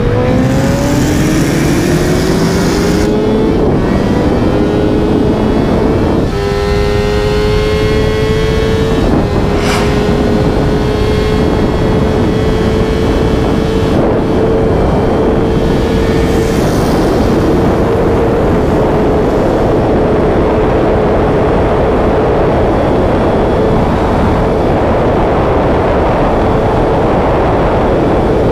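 Sportbike engine pulling hard through the gears at full throttle. Its pitch rises and steps down at upshifts about three and six seconds in, then holds a steady high note at close to 300 km/h, under loud wind rush.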